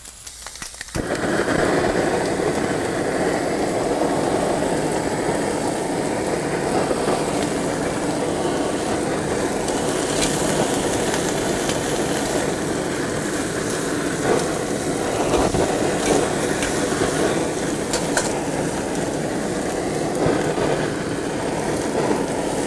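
Handheld butane kitchen torch burning with a steady rushing hiss, lit about a second in, its flame searing marinated pork in a cast-iron grill pan.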